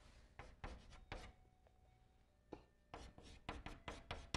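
Chalk writing on a blackboard: faint short scratching strokes, a few about half a second to a second in, then a quicker run of them in the second half as a character is written.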